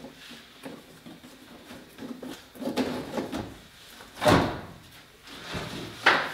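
Intermittent knocks and scrapes of something being handled, with a loud thump about four seconds in and another sharp knock near the end.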